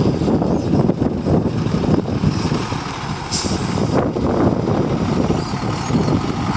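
1996 International 8100 single-axle truck's diesel engine running as the truck rolls slowly toward the microphone, with wind buffeting the mic. A short hiss of air comes about three and a half seconds in.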